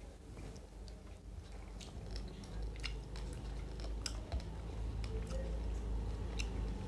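Close chewing and eating sounds of people eating rice and fish with their fingers, with scattered sharp mouth clicks over a low steady hum.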